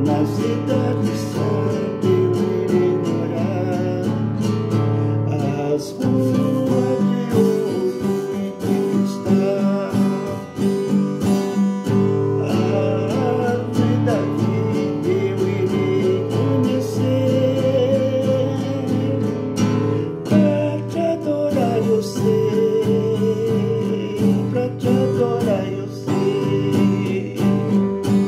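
A man singing a worship song while strumming an acoustic guitar, with steady chords under his voice.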